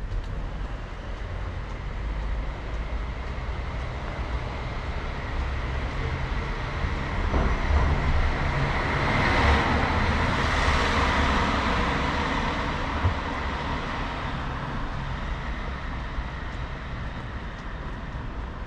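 City street traffic: a steady low rumble, with a passing vehicle that swells to its loudest about halfway through and then fades away. A single brief knock sounds shortly after the peak.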